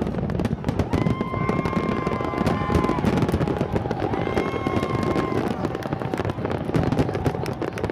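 Aerial fireworks shells bursting in rapid succession, a dense continuous crackle and banging. High steady whistles come in twice, each about two seconds long, at about one and four seconds in.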